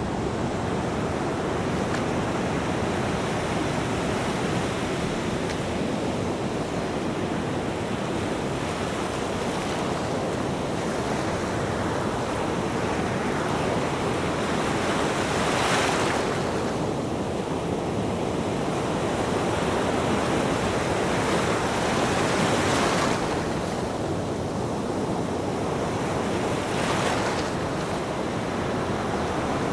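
Ocean waves breaking on a beach: a continuous wash of surf, with louder waves cresting about halfway through, again around three-quarters of the way, and once more near the end.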